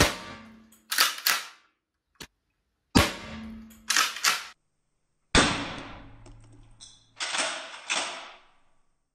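Three shots from a T4E HDX 68 CO2 pump-action launcher, two to three seconds apart, each followed about a second later by two quick clacks of the pump being racked back and forward.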